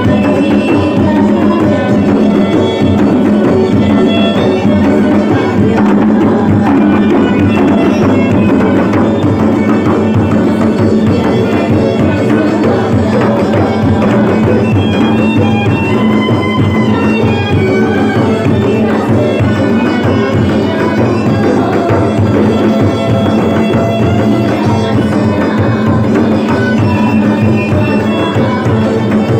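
Sarawak Malay gendang frame drums, several beaten by hand together in a fast, steady rhythm, with a melody line over them.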